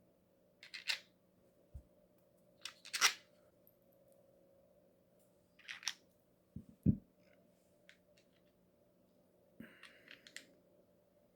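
Small gearbox parts being handled and fitted together: a few short clicks and scrapes, a duller knock about seven seconds in, and a quick run of small clicks near the end, over a faint steady hum.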